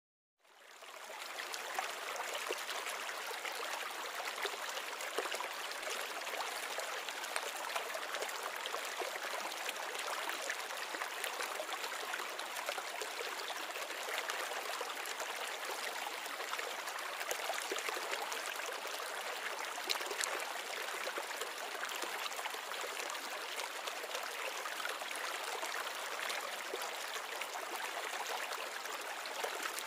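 Steady trickling and splashing of running water, fading in from silence about half a second in.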